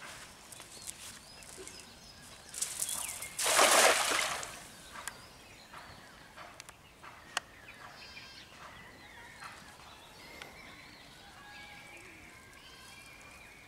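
A thrown cast net lands flat on the duckweed-covered pond with one splash about three and a half seconds in, after a brief swish. Birds chirp in the second half.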